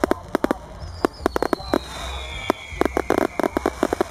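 Fireworks display: a rapid, irregular run of sharp bangs from bursting aerial shells, with a high whistle falling slowly in pitch about a second in.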